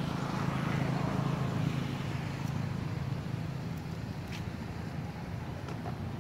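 Steady low outdoor rumble of background noise, with a few faint clicks.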